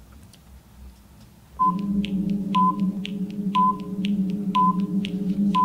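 Quiz countdown timer sound effect that starts about one and a half seconds in: a steady low hum with a short beep once a second and ticks in between.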